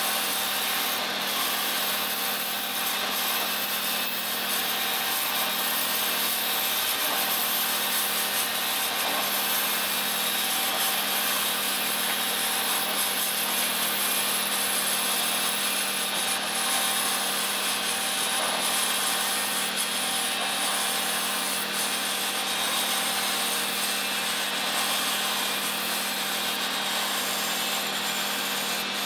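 Metal lathe cutting aluminium bar stock: the lathe runs steadily with a constant hum while the tool takes a continuous cut, a noisy scraping sound over it.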